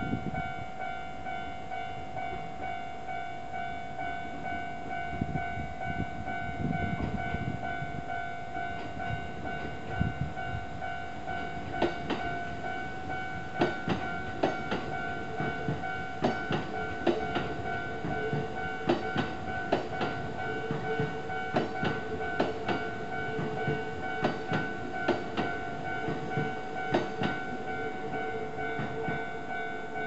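Japanese level-crossing warning alarm ringing steadily. About twelve seconds in, a Kintetsu train starts passing over the crossing, its wheels clacking over the rail joints until near the end.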